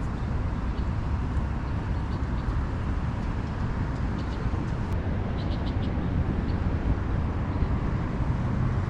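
Steady low outdoor rumble of city background noise, with a few faint high chirps about five seconds in.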